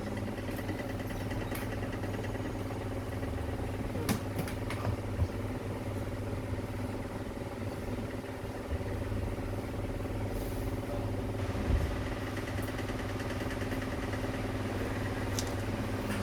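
Steady low mechanical hum, like a motor or fan running, with a few light clicks.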